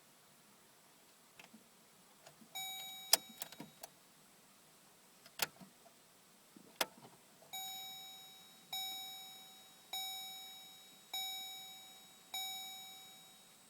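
Chevy Colorado's chime: one chime, a few sharp clicks, two more clicks, then five chimes about a second apart, each fading out. No engine cranking or running is heard.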